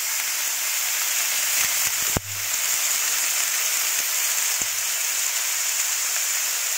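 Carrots, green beans and meat sizzling steadily in a hot stainless-steel wok as the vegetables are sautéed, with one sharp click about two seconds in.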